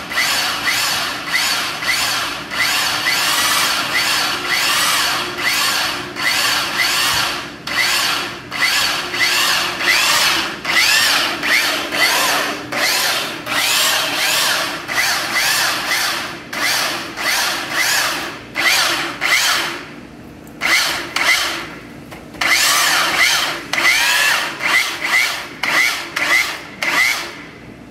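Milwaukee right-angle drill driving a Cannon wire puller, running steadily under load as it reels in pulling rope. Its sound surges about twice a second, with a short squeak on each surge. It drops quieter for a moment about 20 seconds in and again about two seconds later.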